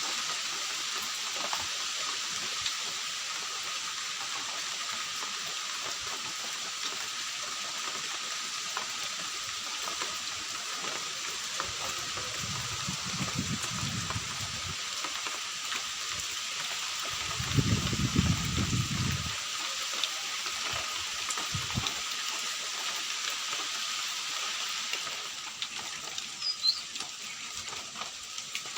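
Steady rain falling, an even hiss, with two low rumbles near the middle, the second one louder.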